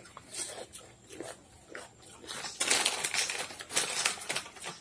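Plastic chip packets crinkling and potato chips crunching as two people eat from them: scattered light crackles at first, turning into a denser rustling, crackling stretch about halfway through.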